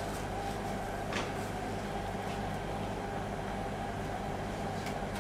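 Steady mechanical hum from commercial kitchen equipment, with a single light knock about a second in.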